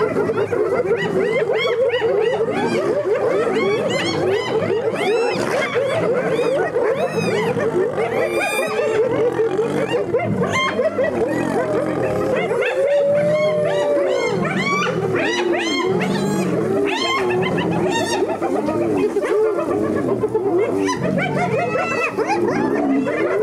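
Spotted hyenas giggling and whooping in a dense, unbroken chorus of short rising-and-falling calls, mixed with low lion snarls and growls. This is the sound of a squabble between hyenas and lions at a kill.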